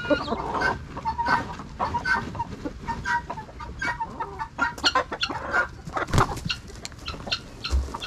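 Flock of chickens clucking in many short repeated calls while pecking at scattered feed, with a single louder thump about six seconds in.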